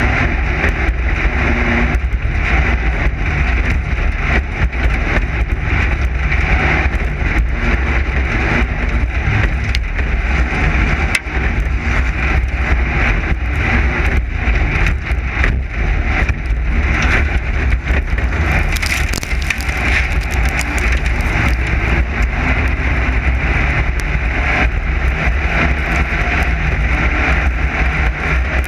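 Class 9 desert race car running hard over rough desert ground: a loud, steady engine drone, with constant rattles and knocks from the chassis and suspension.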